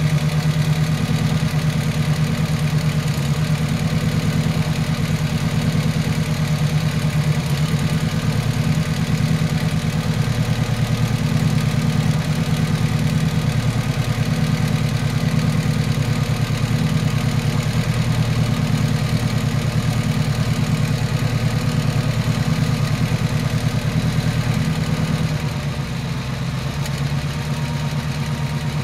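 Brantly B2B helicopter's four-cylinder Lycoming piston engine running steadily at low rpm during start-up, with an even, fast chugging beat. Its level drops slightly near the end.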